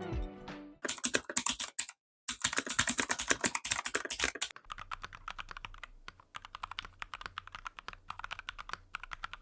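Budget custom-built mechanical keyboard being typed on quickly, a dense run of keystroke clicks as a sound test of the finished board. Music fades out at the start, and about halfway through the typing becomes quieter over a low hum.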